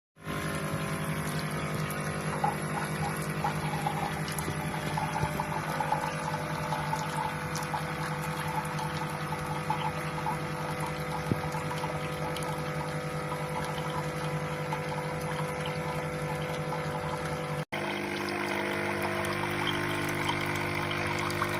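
Dolce Gusto Genio S capsule coffee machine's pump running steadily while brewing, a hum with liquid flowing. Near the end it cuts out for an instant and resumes at a slightly different pitch.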